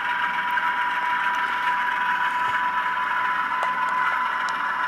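Model diesel locomotive's Tsunami sound decoder playing a steady diesel engine idle through its small onboard speaker, with a thin steady whine.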